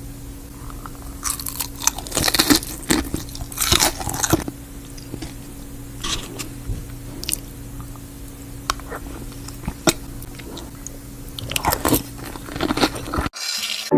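Crisp breaded fried chicken crunching in irregular bursts of crackle, over a steady low hum. The sound cuts off suddenly near the end.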